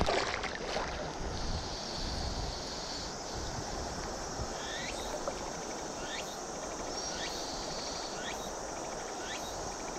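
Steady rushing of river water. From about the middle on, a series of short rising chirps repeats roughly every second over it.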